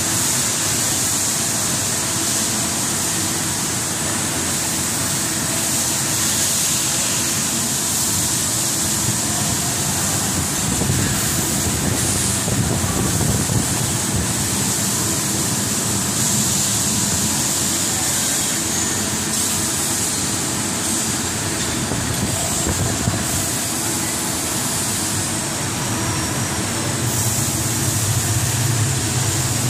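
Steady running noise of a rubber profile extrusion and vulcanization line: a continuous hiss over a low machine hum, with no distinct strokes. The low hum grows louder near the end.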